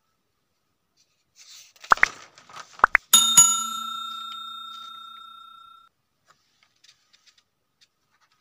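Like-and-subscribe animation sound effect: a brief rustle and a few mouse-style clicks, then a single bell ding about three seconds in that rings and fades out over nearly three seconds.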